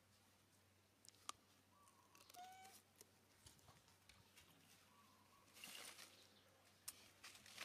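Faint short squeaky animal calls a couple of seconds in, with a few sharp clicks and a brief rustle about six seconds in.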